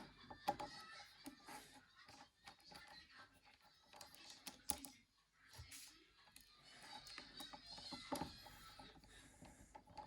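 Faint, scattered small clicks and scrapes of a small screwdriver working the screws out of a Nokia 9300i's plastic housing.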